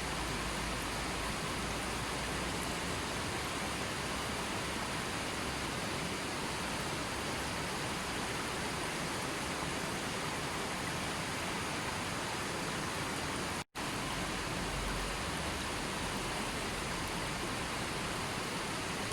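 Steady rushing water, an even hiss with no distinct events, cut by a split-second dropout to silence about two-thirds of the way through, as at the join of a looped recording.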